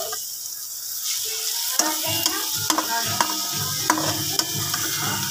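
Beaten eggs with tomato sizzling in a frying pan while a metal spoon stirs and scrapes them, the spoon clicking against the pan several times.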